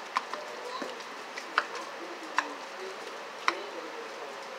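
A fork clicking against a bowl as canned tuna is mashed and stirred: a few sharp, irregularly spaced ticks.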